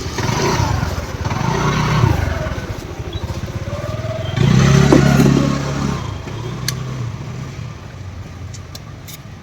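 A motor vehicle engine swelling and fading twice, loudest about halfway through, then dying away, with a few sharp clicks near the end.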